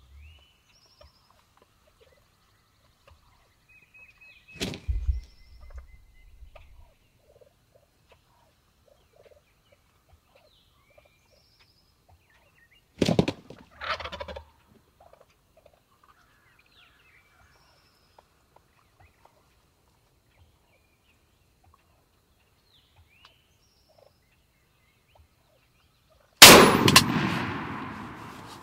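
Wild turkey gobblers gobbling close by: one loud gobble about five seconds in and two more in quick succession around thirteen seconds, with faint bird chirps between. Near the end comes a single very loud shotgun blast that fades out over a couple of seconds.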